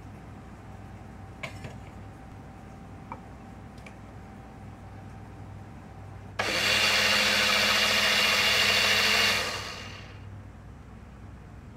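Small electric blender running for about three seconds, blending garlic cooked in milk into a purée, starting suddenly and then winding down as it is switched off. A couple of light clicks come before it starts.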